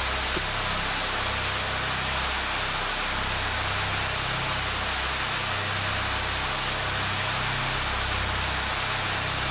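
SmokeCloak security fog generator discharging: a steady hiss of fog jetting out, with an uneven low rumble underneath.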